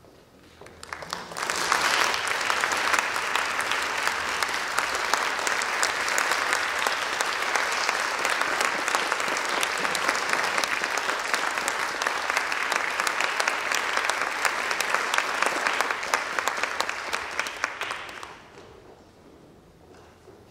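Audience applauding in a concert hall: the clapping swells about a second in, holds steady, and dies away shortly before the end.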